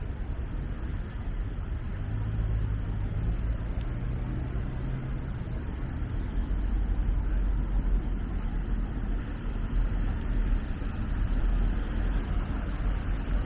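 Road traffic: cars and a van driving past on a street. An engine hum stands out from about one to five seconds in.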